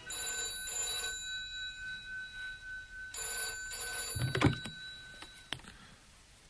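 Telephone ringing twice, about three seconds apart. About four and a half seconds in comes a clunk as the receiver is picked up, followed by a few small clicks.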